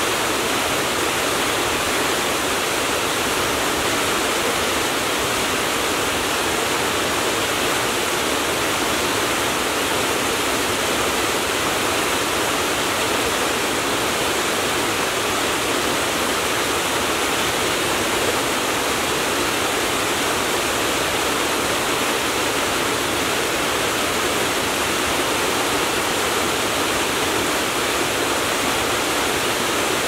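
Mountain waterfall cascading over rock ledges into a pool: a steady, unbroken rush of falling water.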